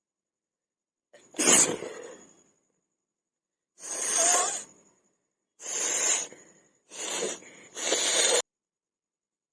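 A person sneezing and blowing their nose: five forceful bursts of breath through the nose, the first, about a second in, the sharpest and loudest, the last two close together.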